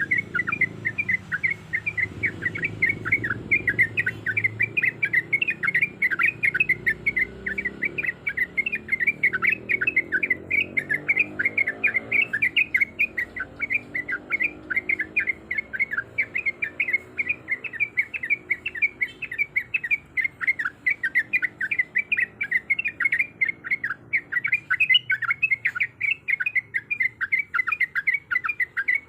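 Yellow-vented bulbul (trucuk) calling without a break: a rapid string of short chattering notes, about four a second. The uploader presents it as a female in breeding condition calling for a male.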